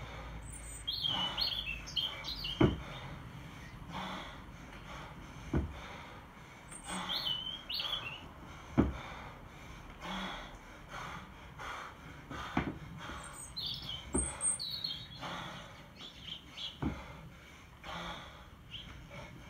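Birds chirping in short bursts over the rhythm of a 24 kg kettlebell one-arm long cycle: a dull thud about every three seconds, one per rep, as the bell is worked.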